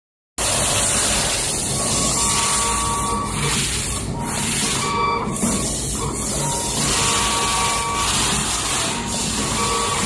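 Wire stripping machine running, its motors driving the belt feed rollers and the stripping blade head: a steady mechanical noise with short whining tones that start and stop several times.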